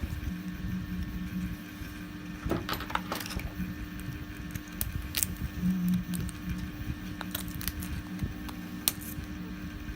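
Scattered small clicks and snaps of pliers and a cutter picking and trimming support plastic off a 3D print, a quick run of them about two and a half seconds in, over a steady background hum.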